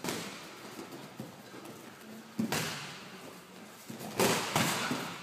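Boxing gloves smacking on guard and body in a sparring exchange, with bare feet slapping and shuffling on a mat. Sharp hits come at the start, about two and a half seconds in, and a cluster about four seconds in.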